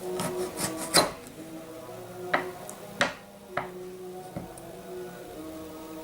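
Kitchen food preparation on a wooden board: a handful of sharp, irregular knocks with some rubbing or scraping between them, as when kencur (aromatic ginger) root is cut or grated.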